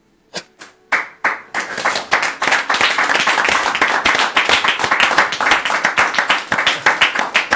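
Small studio audience clapping: a few scattered claps at first, then dense applause from about a second and a half in.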